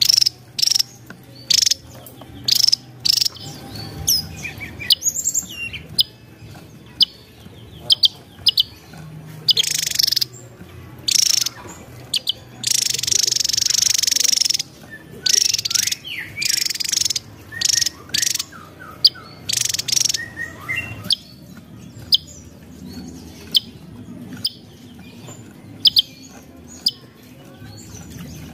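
Javan tesia singing: short, sharp, high-pitched notes repeated about once a second, with a longer buzzy phrase about halfway through.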